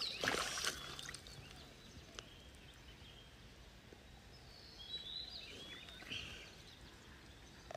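Bare hands splashing and squelching in shallow muddy water at first, then quiet digging in wet mud against faint outdoor background. A few short, high bird chirps come about five seconds in.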